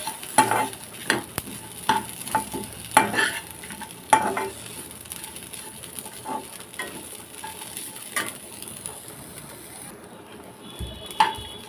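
A spatula stirring and scraping in a pan of tomato, curry leaves and roasted spices being sautéed over the stove. A faint sizzle runs under irregular scrapes and taps, which thin out near the end.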